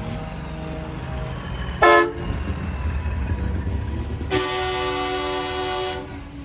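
Semi-truck air horns over the steady low rumble of passing diesel trucks: one short, loud blast about two seconds in, then a longer held blast a couple of seconds later.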